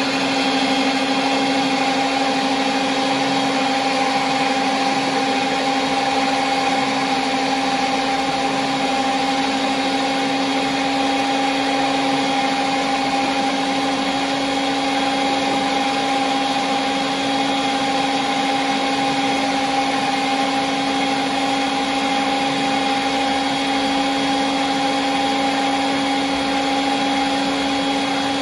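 RIDGID power pipe-threading machine running steadily, its motor and gear drive holding one even whine while the spinning conduit is cut with the machine's wheel cutter.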